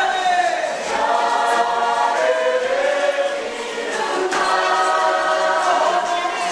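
Kapa haka group singing a waiata together in unison, many voices holding and sliding between long notes.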